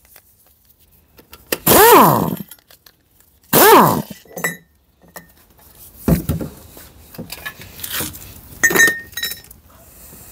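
Metal parts and tools clinking and knocking in a run of sharp, irregular strikes, one ringing briefly near the end. Before them come two short loud sounds that rise then fall in pitch, of unclear source.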